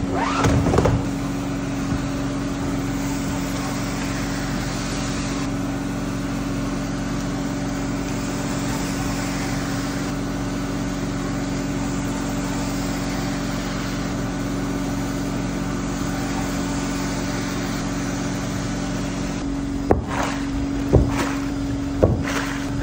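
Rotary floor-scrubbing machine running steadily with a constant motor hum, its brush scrubbing shampoo foam into an area rug. About twenty seconds in the hum changes and gives way to a squeegee pushing water off the rug, with a few sharp knocks.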